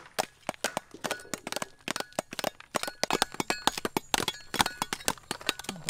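Hard woody shells of wood apples being knocked and cracked open with a wooden stick and cleaver blades by several people at once: many sharp, irregular cracks and knocks, several a second, overlapping.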